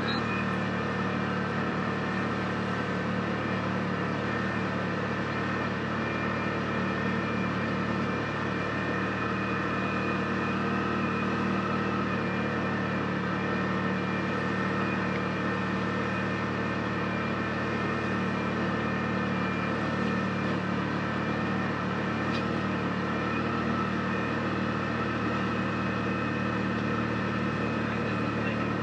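Side-by-side UTV engine running at a steady, even pitch while the machine is driven along a trail.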